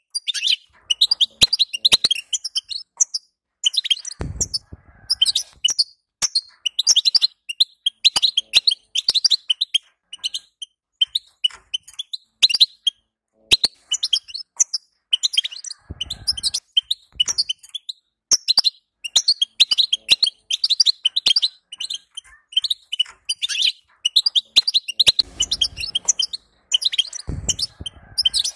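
European goldfinch singing: a rapid, continuous twittering of high chirps and trills with brief pauses. A few soft low thumps come in between, about four seconds in, around the middle, and twice near the end.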